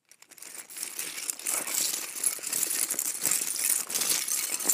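Dense clattering rattle of many small hard pieces tumbling against each other. It fades in over the first second and then runs on steadily.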